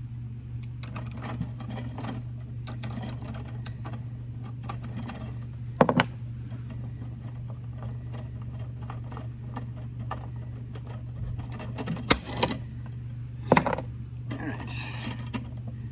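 Socket ratchet clicking in runs as the bolts of a hand swaging tool are tightened to crimp a swage sleeve onto stainless steel lifeline wire, with a few louder sharp metal clacks about 6, 12 and 13 seconds in. A steady low hum runs underneath.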